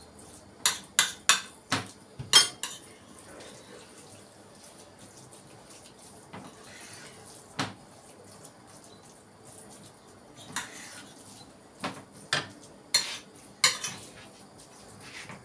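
A plate and a wooden spatula knocking and scraping against a frying pan as grated carrots are tipped in and stirred while sautéing. There is a quick run of about six sharp knocks in the first few seconds, a single knock about halfway, and a cluster of knocks near the end.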